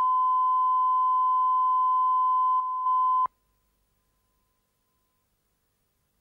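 Line-up reference tone at 1 kHz on a broadcast commercial master, played with the colour bars for setting audio levels. It is one steady pure tone that dips briefly in level about two and a half seconds in, then cuts off sharply a little after three seconds.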